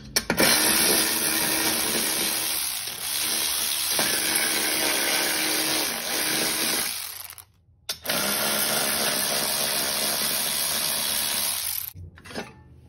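Cordless electric ratchet running, loosening the bolts that hold the mower deck's belt covers: one long run of about seven seconds, a short break, then a second run of about four seconds.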